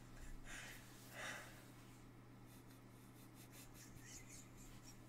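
Near silence: room tone with a faint steady low hum, and a couple of soft breaths from a man in the first second or so.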